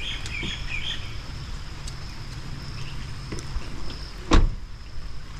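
A Toyota Prius car door shutting with a single sharp thump about four seconds in. Birds chirp briefly at the start over a steady low background noise.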